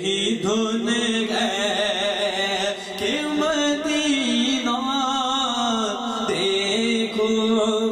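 A man singing an Urdu naat (devotional poem in praise of the Prophet), a slow melody with long held notes that waver in ornaments.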